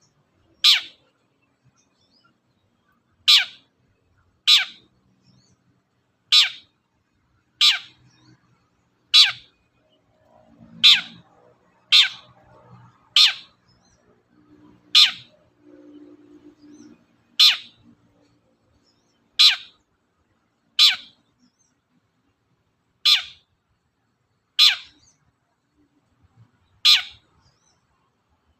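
Long-tailed shrike (cendet) giving single short, sharp, loud calls, about sixteen of them, one every one to two seconds.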